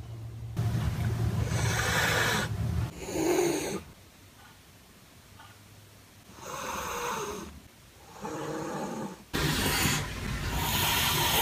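A cat hissing and growling in several rough, breathy bursts, an aggressive warning at the other, newly shaved cat.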